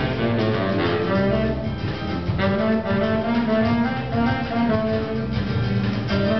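A small band playing live: baritone saxophone and clarinet over a drum kit and guitars, with the saxophone carrying the low melody line.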